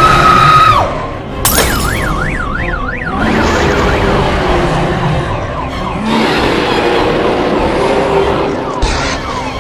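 A siren swooping quickly up and down three or four times, a yelp pattern, about two seconds in, over loud background music.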